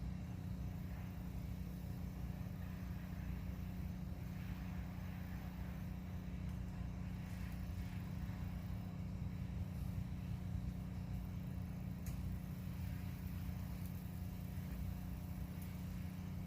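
A steady low mechanical hum, like a motor or traffic droning without change, with a couple of faint clicks near the end.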